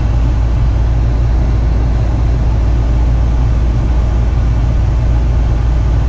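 Lennox G51 gas furnace running, a steady low rumble from its motors with no change.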